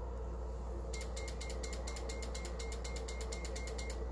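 Icom IC-7300 transceiver's internal antenna tuner relays clicking in a fast, even train of sharp clicks, about eight a second for some three seconds, as the tuner steps to match the antenna.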